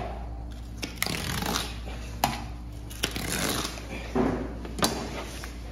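Long knife cutting through the flesh of a bluefin tuna along its backbone, with sharp clicks and knocks about a second apart as the blade and fish are worked on the board.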